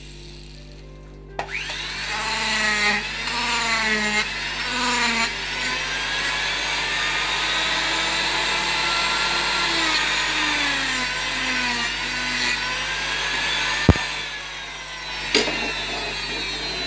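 Handheld power carving tool grinding bulk off a wooden carving, its motor pitch dipping and rising as it bites into the wood. It starts about a second and a half in and stops with a sharp click near the end, followed by a couple of knocks.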